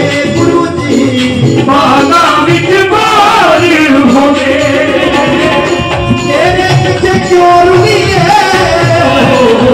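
Men singing a Punjabi devotional song into microphones over amplified music with a steady drum beat. The lead voice slides and wavers in long held notes.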